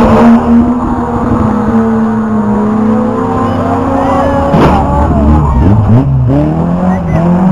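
Several rear-wheel-drive banger race cars' engines revving hard as they slide round a tight bend and pass close by. Their engine pitch rises and falls as each car goes past.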